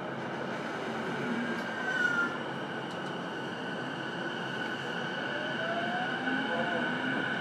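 Interior sound of a JR East E233-series electric commuter car: a steady hum and whine from its electrical equipment over a bed of noise, with a brief falling tone about two seconds in and a faint rising tone a little past halfway.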